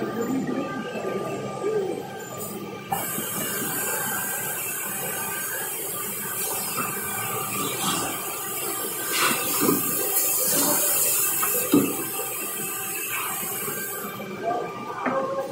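Six-head boring machine running: a steady whine of motors and belt drives with a loud hiss that starts sharply about three seconds in and stops near the end. A few knocks and clatters sound over it.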